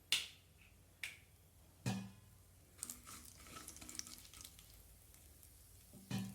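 Kitchen utensils knocking: three sharp clicks about a second apart, the last with a dull thud, then a spell of light crackling and clinking and another thud near the end.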